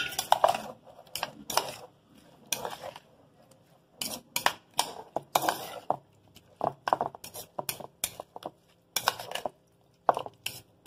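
A metal spoon clinking and scraping against a bowl in quick, uneven strokes while ceviche (fish, shellfish, onion and lime juice) is stirred and tossed.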